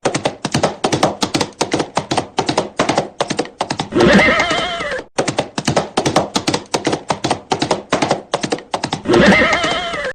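Horse galloping sound effect: a fast run of hoofbeats, broken twice by a horse's whinny lasting about a second, about four seconds in and again near the end.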